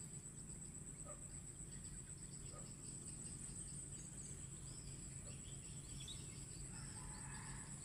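Insects trilling in one steady high-pitched drone, with faint scattered chirps, over a constant low background hum.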